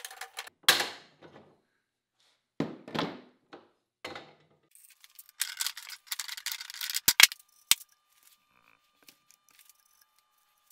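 Hand pop-rivet tool being squeezed to set steel pop rivets in the hinge of steel tongs: separate metal clacks and rattles as the handles work, with a few sharp snaps about seven seconds in.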